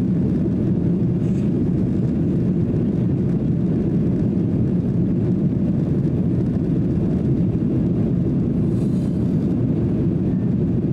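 Steady low cabin roar of a Boeing 737-800 climbing out after takeoff: its CFM56-7B turbofan engines and rushing airflow, heard inside the passenger cabin.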